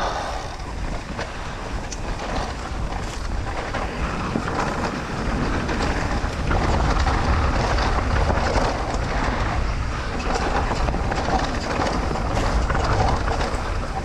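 Mountain bike descending a dirt trail: the tyres rumbling over the ground and the bike rattling and clicking over bumps, with a heavy low rumble that grows louder about six seconds in.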